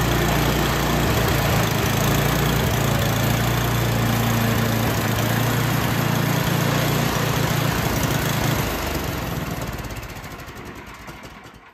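White Outdoor 30-inch gas snowblower engine running steadily, then shut off about three-quarters of the way through, slowing down and dying away to a stop near the end.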